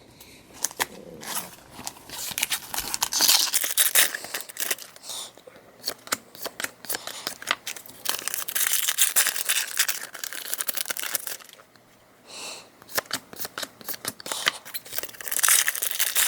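Foil Pokémon card booster pack wrapper crinkling and tearing open, in bursts of dense crackling, with cards being handled.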